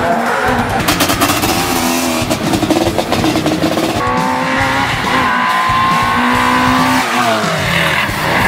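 Rally car engines revving hard through corners, their pitch rising and falling with the throttle, with tyres squealing. The sound changes abruptly about halfway through and again near the end as a different car takes over.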